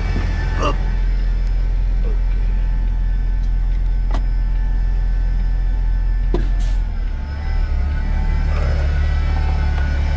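Heavy truck's diesel engine idling steadily with a deep hum, its low note shifting about seven seconds in. A few sharp clicks and knocks from the cab door and fittings are heard over it.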